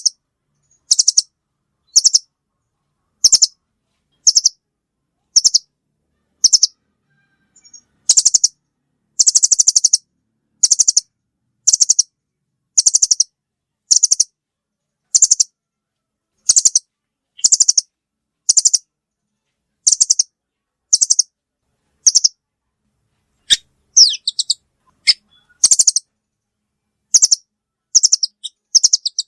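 Velvet-fronted nuthatch calls used as a trapping lure: short, high, trilling chatters repeated about once a second, with a brief cluster of different notes a little past the middle.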